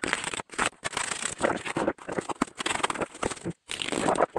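Marker scratching along a cardboard template as it is traced, with the cardboard rubbing and shifting on the plastic step insert: a run of irregular scratchy strokes with short pauses.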